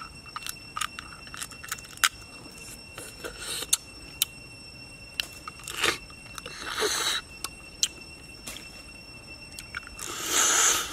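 Cooked king crab leg shell being bitten and eaten: sharp crunches and clicks of shell between the teeth, with longer noisy bursts of sucking the meat out of the shell about six and seven seconds in and, loudest, near the end.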